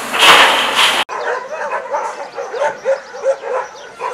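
A tipping dump truck pours a load of soil, a loud rush over the engine's low hum, which cuts off about a second in. Then many kennelled dogs bark, quick overlapping barks several a second.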